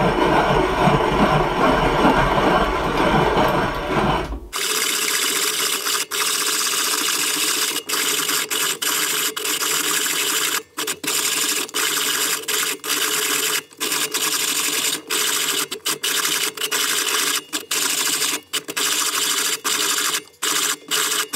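Hand-cranked grain mill grinding whole brown rice into flour: a steady grating rasp with short breaks about once a second. Rice is a hard grain, so the grinding takes heavy effort. The sound is fuller and lower for the first four seconds or so.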